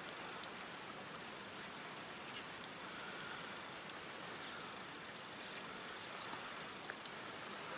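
Quiet outdoor background in bush: a steady faint hiss, with a few faint, short, high bird chirps in the middle.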